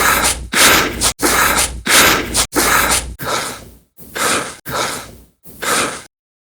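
A run of short human breaths and gasps, about nine in all, each around half a second long and cut off abruptly before the next.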